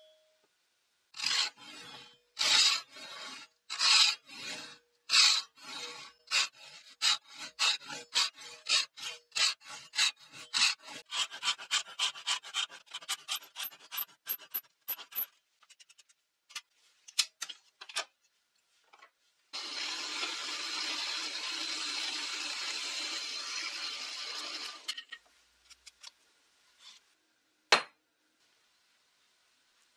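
Japanese pull saw cutting a kerf into the end of a hardwood dowel tenon, which the maker takes for oak, for a hidden wedge: separate rasping strokes, slow at first and quickening to about three a second before stopping about halfway through. Later comes a steady hiss lasting about five seconds, and a single sharp click near the end.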